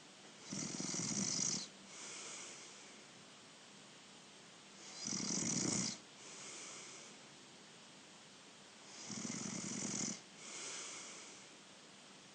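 Sleeping person snoring: three loud snores about four seconds apart, each followed by a quieter breath out.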